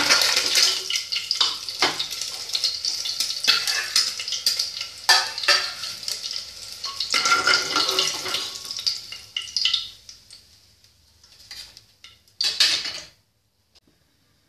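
Hot oil sizzling around boiled eggs in an aluminium pressure cooker while a metal spoon scrapes and clinks against the pot, lifting the fried eggs out. The sizzling fades away about ten seconds in, with one last metal clatter near the end.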